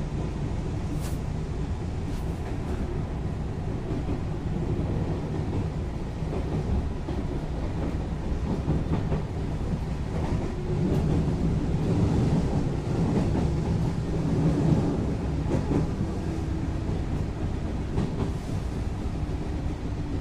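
JR West 221 series electric train running along the track, a continuous rumble of wheels and running gear. A faint steady tone sets in near the end.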